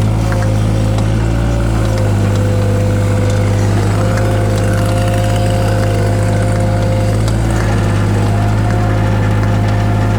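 Takeuchi TB016 mini excavator's diesel engine running steadily, with a higher whine over it that steps in pitch about two seconds in and again near the end.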